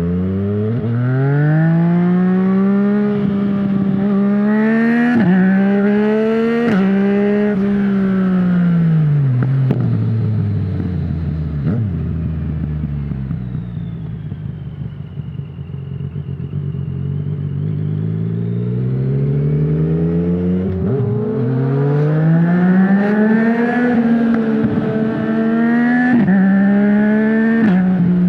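Yamaha MT-09's 847cc inline-three engine through an Akrapovic full-system exhaust with no dB killer, accelerating hard through the gears with a sudden drop in pitch at each upshift. About a third of the way in it winds down on the overrun to a low rumble, then pulls up through several gears again.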